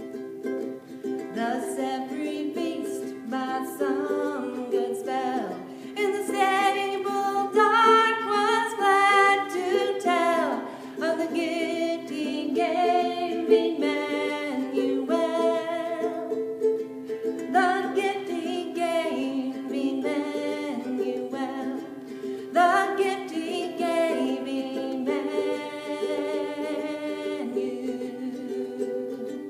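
A woman singing while strumming chords on a ukulele.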